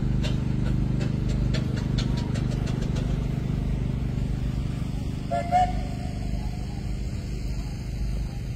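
Ford Model TT's four-cylinder side-valve engine running steadily. A quick run of sharp ticks, about four a second, comes over the first three seconds, and a short higher tone a little past halfway.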